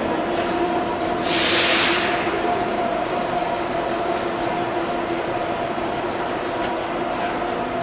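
Standing vintage subway train's onboard equipment running with a steady hum that starts abruptly and rises briefly in pitch before it settles. A loud burst of air hiss comes about a second in.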